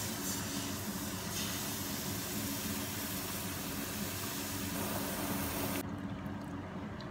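Hot sauce base sizzling and bubbling in a stainless steel pan as cooking cream is poured in from a carton; the hiss cuts off suddenly near the end, over a steady low hum.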